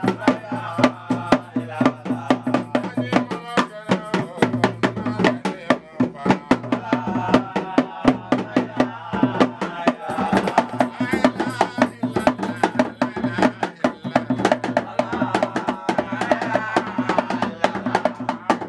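Rope-tuned hand drum played in quick, dense strokes, with people's voices over the drumming.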